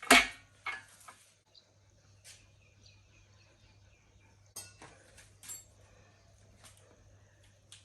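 Light metallic taps and clinks of engine assembly work, pistons being tapped down into the cylinder bores: one sharp knock right at the start, then a scattering of lighter clinks.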